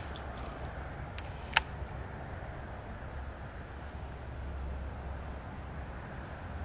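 Steady low outdoor rumble with a few faint high chirps, and one sharp click about a second and a half in.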